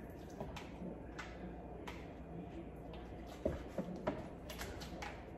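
Light clicks and taps of a seasoning container being handled at a kitchen counter while a steak is peppered, with two sharper clicks past the middle, over a faint steady room hum.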